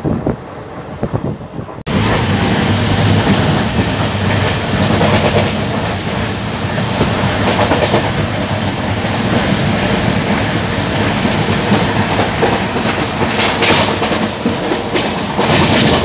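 Quilon Express passenger train running on the track, its wheels clattering along the rails. About two seconds in there is a sudden cut to a louder, steady rumble of the coaches rolling along as the train arrives at the platform.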